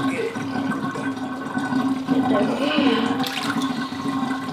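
Bath water splashing and running in a bathtub as a wet puppy is lathered by hand, with a steady hum underneath.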